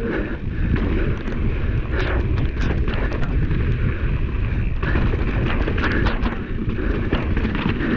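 Wind buffeting the microphone over the rolling rattle of a mountain bike, a Santa Cruz Hightower 29er, riding down a wet, rocky trail. Scattered clicks and knocks from the tyres and bike hitting rocks sound throughout.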